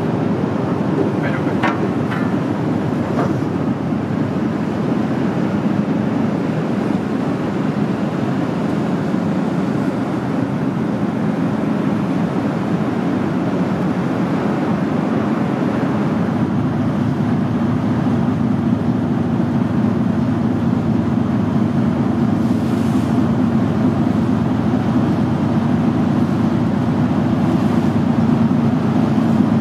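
Ferry's engines running with a steady low drone as the ship pulls away from the quay and gets under way, with propeller wash churning. The drone grows a little stronger about halfway through.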